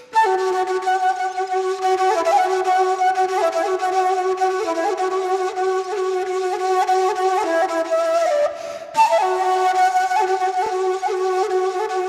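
Background music: a solo flute-like woodwind playing a slow melody in held notes, with a short break just before nine seconds in.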